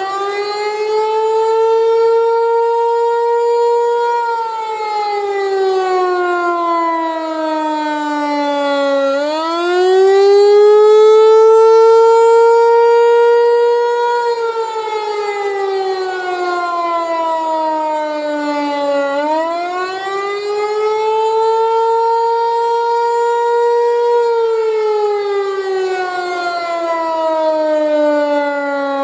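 Federal Signal Equinox rotating chopper outdoor warning siren sounding its attack signal during a test. Its pitch climbs quickly, holds for about four seconds, then slides down over about five seconds, and the cycle repeats about every ten seconds, three times. The loudness swells and eases as the siren rotates.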